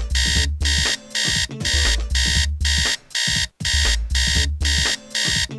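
Electronic alarm clock beeping in a fast repeating pattern, about two bursts a second, with short gaps between them.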